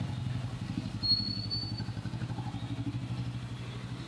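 Low, steady, rapidly pulsing drone of workshop machinery running, with a brief thin high whine about a second in.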